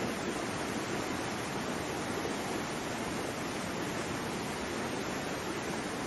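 Waterfall: a steady, even rush of falling water, with no swells or breaks.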